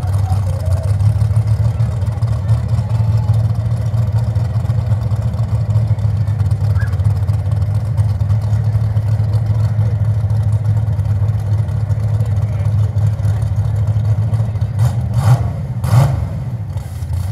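Large engine idling with a steady low rumble. Two brief sharp noises come near the end.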